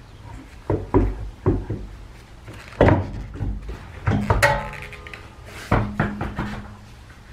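A car's alloy wheel and tire being worked loose and pulled off the rear hub: a series of separate knocks and thuds, with one metallic clank about four and a half seconds in that rings briefly.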